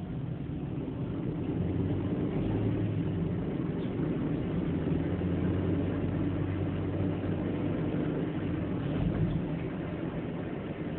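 Car engine and road noise heard from inside the cabin while driving: a steady low hum that swells during the first couple of seconds and eases slightly near the end.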